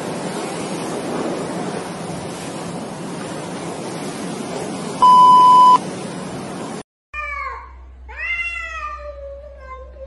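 A steady hiss of background noise, broken by a loud single-tone beep of under a second about five seconds in; then, after a brief gap, a cat meowing in long, drawn-out calls.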